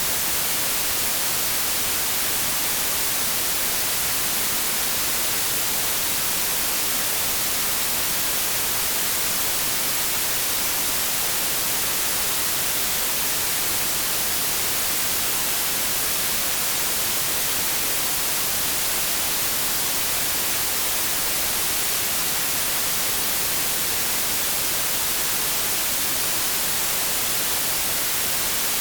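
Generated 'inverse' white noise: a steady, unbroken hiss, brightest in the highest pitches and thin in the bass.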